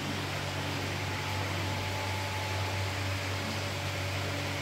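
Steady hum and hiss of aeration blowers and water pumps running at koi holding tanks, unchanging throughout.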